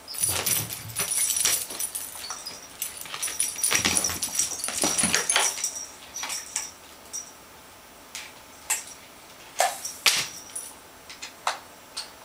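Small jingle bell on a cardboard cat toy jingling as the toy is jerked about on fishing line, with scuffling, busiest over the first six seconds. After that come a few separate short jingles and clicks.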